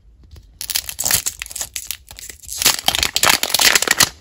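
Thin plastic shrink-wrap crinkling and crackling as it is peeled and pulled off a plastic toy capsule ball. It starts about half a second in and is loudest near the end.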